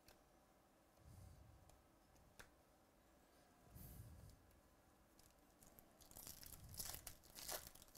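Faint crinkling tear of a foil baseball card pack wrapper being ripped open, starting about six seconds in, after a few soft clicks and a short rustle as the packs are handled.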